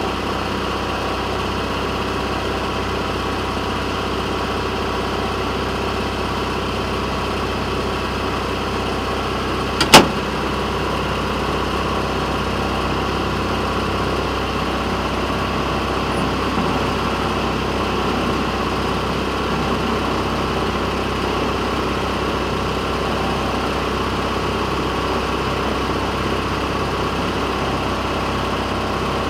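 Small engine of a railroad motorcar (speeder) running steadily as it travels along the track. One sharp click comes about ten seconds in.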